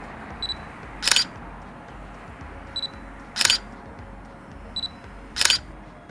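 Digital SLR camera taking three shots. Each shot is a short high autofocus-confirmation beep followed about half a second later by the shutter and mirror click. A faint steady hiss runs underneath.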